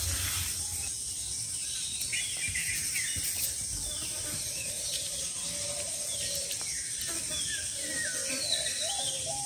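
Scattered wild bird chirps over a steady, high-pitched insect drone.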